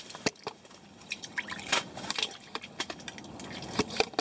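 Water splashing and dripping at a hole in the ice as a walleye is lifted out, with scattered sharp irregular clicks and taps.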